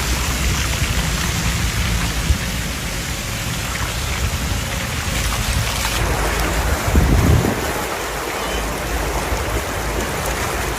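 Steady rushing rain-like noise with heavy low rumbling; its character changes about six seconds in, and a short low thump swells up about seven seconds in.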